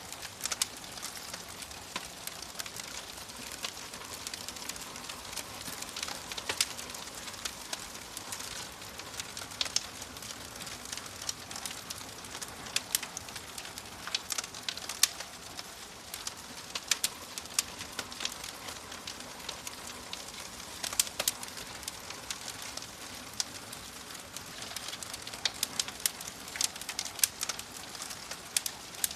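Wood fire crackling: a steady hiss with frequent sharp pops and snaps scattered irregularly throughout.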